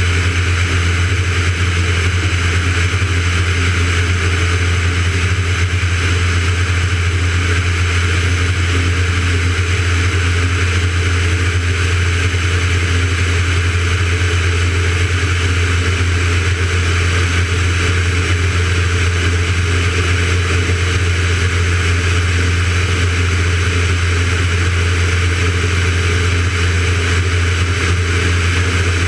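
Van's RV-9A light aircraft in steady cruise: the constant drone of its piston engine and propeller, with a rush of air, heard from a camera mounted outside the airframe.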